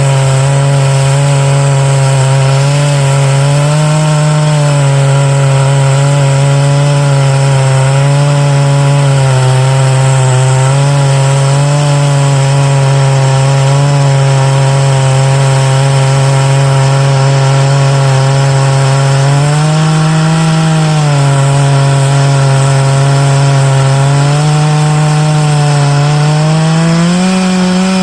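Large-displacement chainsaw running under load, milling oak. Its steady engine note bobs up in pitch a few times and climbs near the end.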